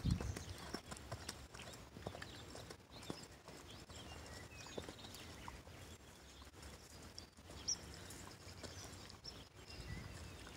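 Faint, uneven hoofbeats of a paint horse moving on the soft dirt footing of a round pen.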